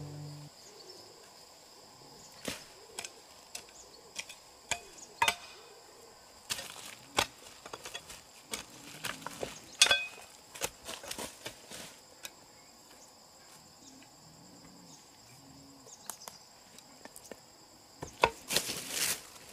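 Irregular chopping blows, some single and some in quick runs, over a steady high chirring of insects. A longer rustling burst comes near the end.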